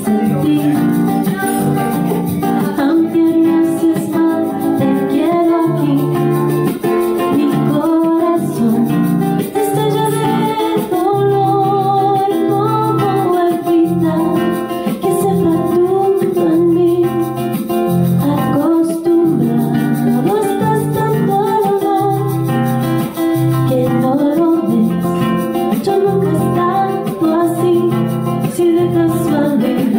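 A woman singing a slow melody, accompanied by a nylon-string classical guitar that is fingerpicked and strummed.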